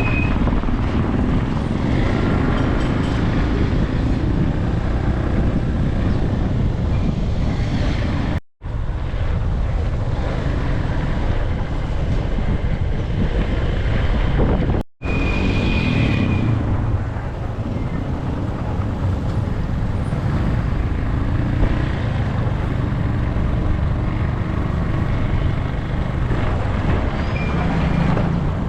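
Steady motor-vehicle traffic noise with a heavy low rumble, breaking off briefly twice.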